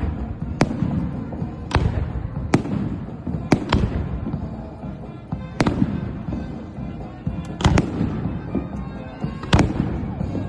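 Aerial fireworks shells bursting in a salute: about ten sharp bangs at uneven intervals, roughly one a second, some in quick pairs, over a steady low rumble.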